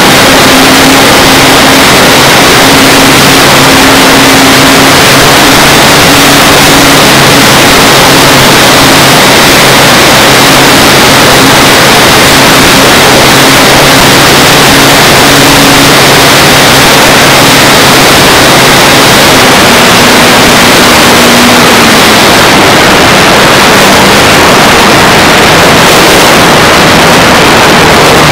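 Onboard sound of a radio-controlled P-51 Mustang model plane in flight: a loud, overloaded rush of wind and propeller noise over the microphone, with a steady motor tone underneath. The motor tone shifts and fades about twenty seconds in.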